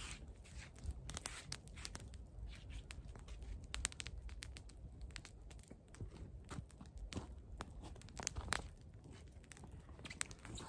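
Footsteps crunching in snow and a small wood campfire crackling, with scattered sharp snaps at irregular intervals.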